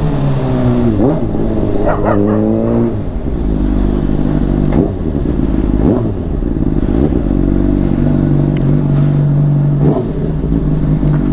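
Honda CBR600RR's inline-four engine running through a Yoshimura aftermarket exhaust while being ridden. Its pitch falls and rises in the first three seconds, then holds steadier with a few short dips.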